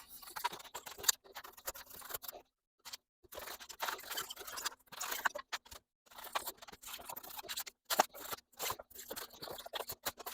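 A sharp razor blade slicing through a sheet of foam board in repeated strokes: a scratchy, crackling rasp with small clicks, pausing briefly a couple of times.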